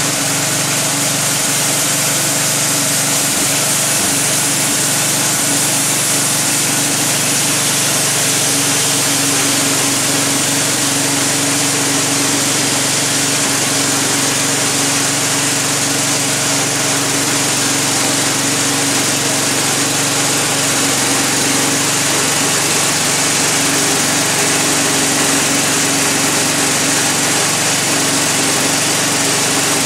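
Air-cooled engine of a 1985 Wood-Mizer LT-30 band sawmill running steadily at an even speed.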